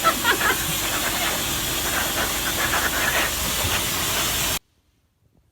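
Steady loud hissing noise with scattered faint short chirps or squeaks in it, cutting off abruptly about four and a half seconds in.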